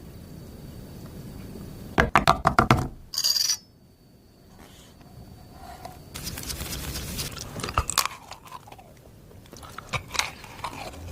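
Kitchen handling noises: a quick clatter of short clicks and crunches about two seconds in, a brief hiss just after, then scattered clicks and scrapes later on.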